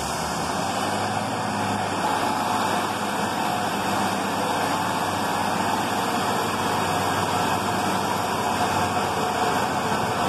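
Class 153 diesel railcars' underfloor Cummins diesel engines running under power as the coupled units pull out, a steady engine sound that grows slightly louder about two seconds in.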